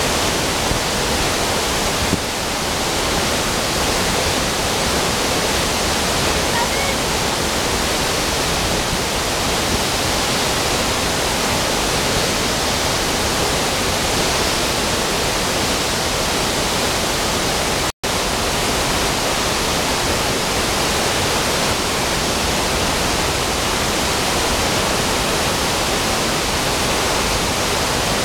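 Water rushing steadily over the rocks of a stream below a waterfall, a loud even rush of white water. It cuts out for an instant about two-thirds of the way through.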